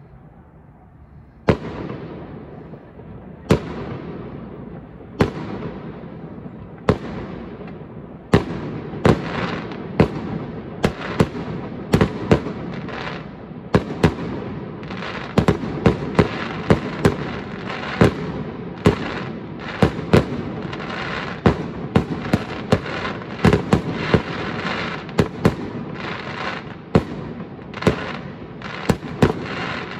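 Aerial fireworks display: shells bursting with sharp bangs, at first one about every two seconds, then from about eight seconds in a rapid barrage of bangs over a steady din.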